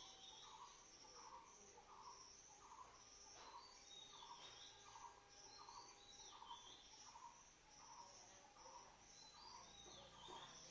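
Faint chirping of insects and birds, with a short call repeating about twice a second over higher chirps.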